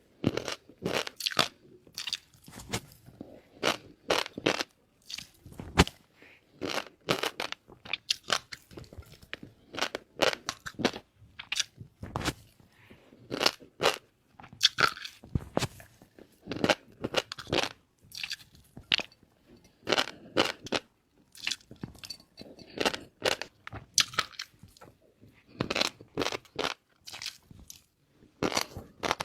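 Close-miked eating of shrimp with fish-roe sauce: continual crunching and chewing, with many sharp, irregular crunches every second.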